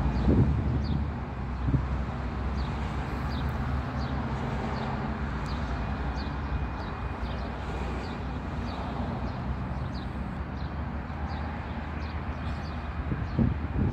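Steady outdoor background of a distant engine drone and traffic rumble, strongest in the first few seconds, with small birds chirping repeatedly over it.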